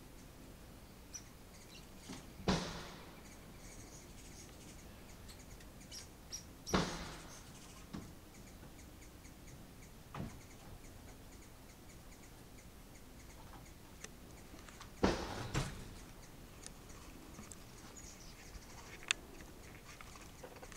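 Hummingbirds at a feeder: a few brief whirring rushes of wings as they dart past, about 2.5, 7 and 15 seconds in, over a faint quiet background with scattered short high chirps.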